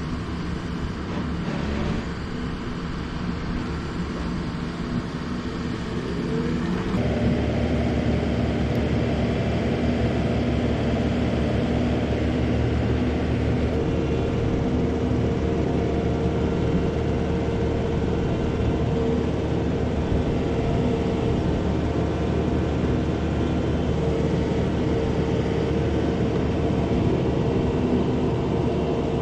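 Takeuchi TL12V2 compact track loader's diesel engine running steadily while it carries lumber on its forks. It gets louder with a short rise in pitch about seven seconds in, then holds steady.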